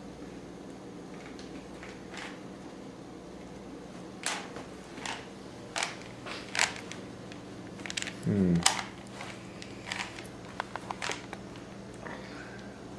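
Rubik's cube being turned by hand: a string of sharp plastic clicks as the layers are twisted, bunched about four seconds in and again near the end. A brief falling vocal sound, the loudest moment, comes about eight seconds in over a steady low hum.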